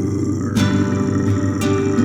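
Music with strummed guitar over sustained low tones, with sharp hits about half a second in and again near the end.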